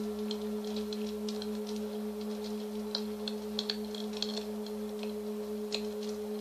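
Singing bowl ringing with a steady, sustained low tone and its higher overtone, over the irregular high crackling of a burning wood fire.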